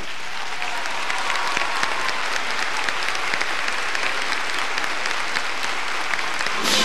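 Large crowd in a big hall applauding steadily, a dense sustained clapping.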